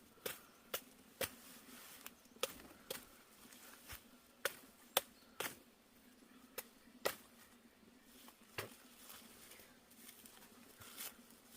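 A series of sharp knocks, several in quick pairs about half a second apart, then sparser toward the end, over a faint steady hum.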